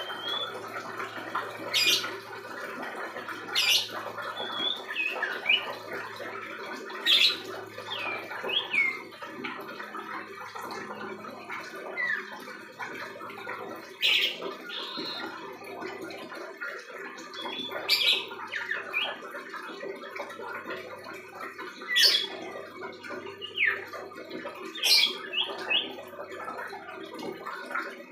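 Young common iora (cipoh) in a cage practising its song: a short, sharp call every few seconds, with soft, brief rising and falling chirps between them. These are the halting, unfinished notes of a juvenile still learning its song.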